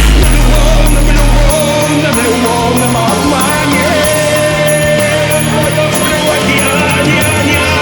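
Music with singing. A heavy deep bass drops out about a second and a half in, leaving a held, wavering melody over the rest of the mix.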